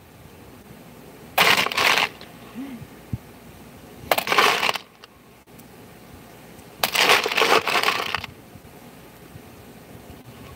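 Small metal parts clattering, in three short rattling bursts a few seconds apart.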